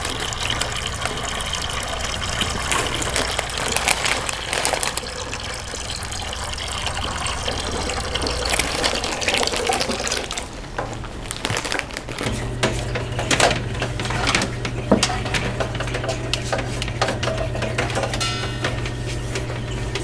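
Water running and splashing in an aquarium, with scattered clicks and knocks. A steady low hum comes in a little past halfway.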